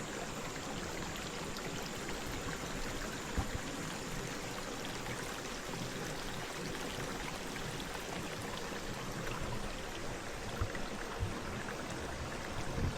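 A small forest creek flowing steadily. It is a normally dry creek running after a week of heavy rain. A few faint knocks sound over it.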